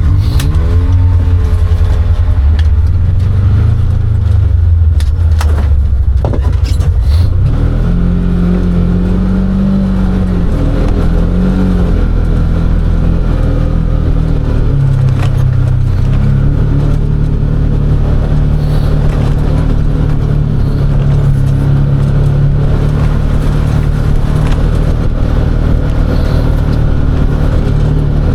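Side-by-side UTV engine running under load, revving up and down through the first several seconds, then holding a steady pitch. A few sharp knocks come in the first seven seconds.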